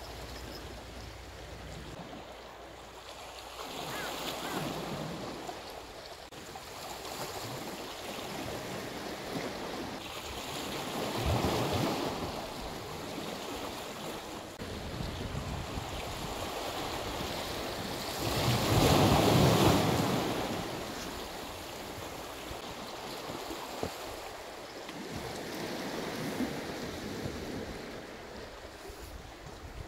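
Sea waves washing up on the shore in slow surges every several seconds, the loudest about twenty seconds in, with some wind.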